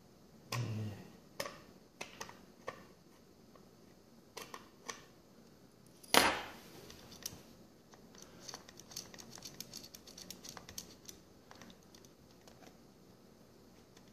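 Scattered light clicks and knocks from handling a boxed 1:43 scale model car on its display plinth, with one sharp knock about six seconds in and a run of quick small clicks a couple of seconds later.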